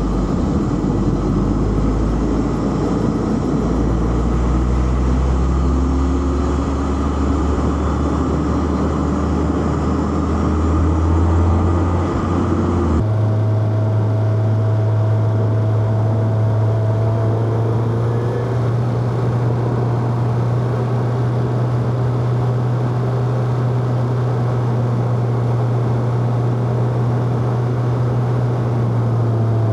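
Four-cylinder petrol car engine pulling under acceleration, its note climbing steadily. About 13 seconds in the sound changes abruptly to a steady engine note held at constant revs.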